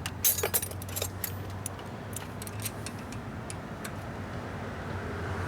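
Light metallic clicks and clinks of small parts and hand tools being handled, a quick cluster in the first half second then scattered ticks, over a steady low hum.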